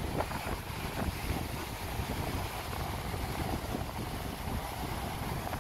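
Wind buffeting the microphone: an uneven low rumble with a steady hiss above it.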